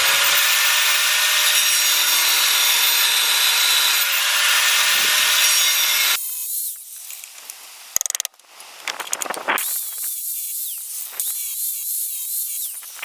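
Angle grinder grinding at a rust-seized tie rod. It runs steadily and loud for about six seconds, then cuts off suddenly. Shorter bursts of grinding follow, with the motor pitch wavering under load.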